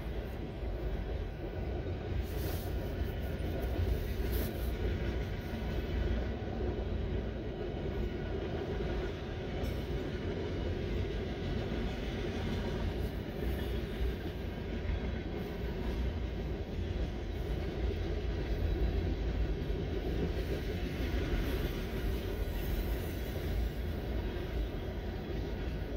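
Freight cars of a mixed freight train rolling past: a steady rumble of steel wheels on the rails that runs on without a break.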